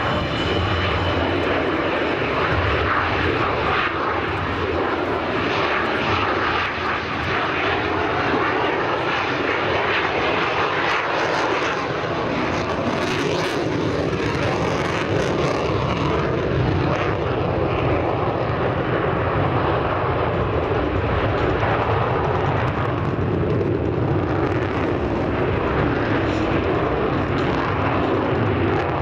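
Loud, steady jet noise from a Danish F-16 fighter's single turbofan engine as it flies display manoeuvres.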